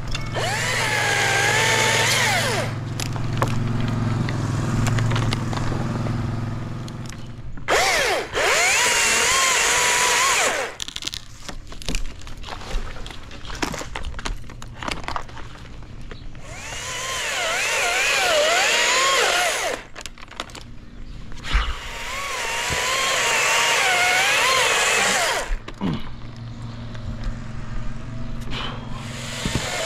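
Echo top-handle two-stroke chainsaw cutting dead maple limbs. It revs up under load four times for a few seconds each, its pitch sagging and wavering as the chain bites, and drops back to a lower idle between cuts.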